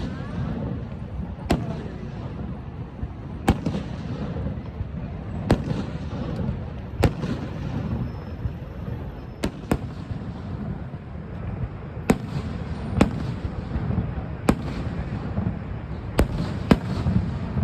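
Fireworks going off, sharp bangs every second or two, some in quick pairs, over a steady low rumble.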